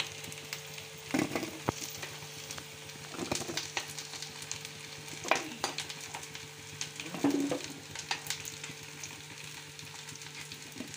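Whole baby potatoes deep-frying in hot oil in an iron kadhai, sizzling steadily as they reach golden brown. A steel ladle scrapes and clinks against the pan a few times as they are scooped out into a steel bowl.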